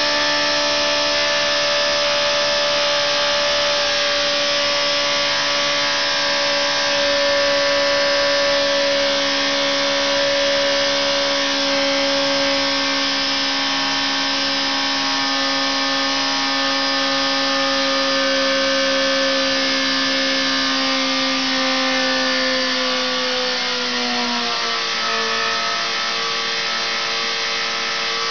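Engine running at steady speed on a dynamometer test bed, a steady whine over a broad rush of noise. About 23 seconds in, the pitch slides down as the engine speed drops a step and then holds.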